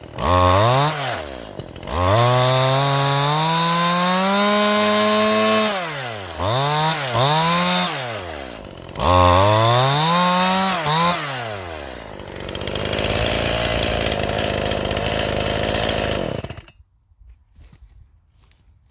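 Stihl MS181 two-stroke chainsaw revving up and dropping back to idle several times, as between cuts in firewood, then running at a rough steady note before stopping abruptly near the end.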